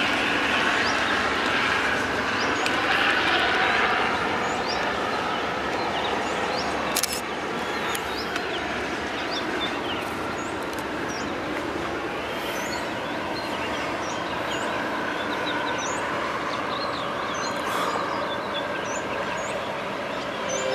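Freight train of flatbed wagons loaded with containers rolling by on the rails, a steady rumble throughout. From about five seconds in, birds chirp repeatedly over it, and there is one sharp click near the middle.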